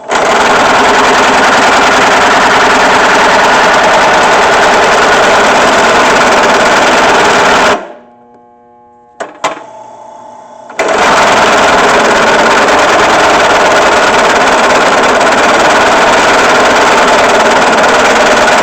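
Drill press bit cutting into steel, poorly lubricated, in two long bursts of loud buzzing chatter with a pause of about three seconds between them. The cut sounds like a weed eater going by.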